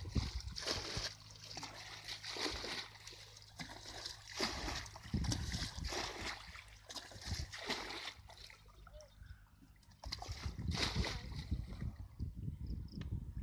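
Water splashing in a series of irregular splashes a second or two apart, with a low steady hum under the first part.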